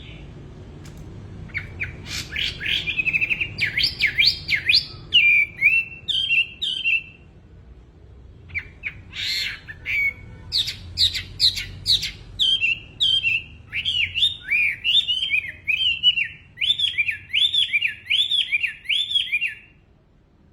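A wambi songbird singing loudly and continuously, with fast runs of sharp whistled notes that sweep up and down. It sings two long phrases with a brief pause between them, and the song stops near the end.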